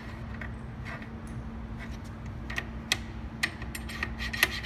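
Scattered sharp clicks and light knocks as a replacement label box is fitted into a wet-glue labelling machine, coming more often in the second half, over a steady low hum.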